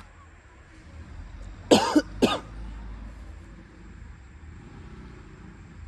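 A man coughing twice in quick succession about two seconds in, the second cough shorter, over a faint low steady rumble.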